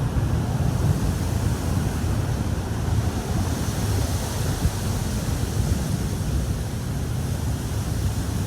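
Wind blowing across the microphone: a steady low rumble with no distinct events.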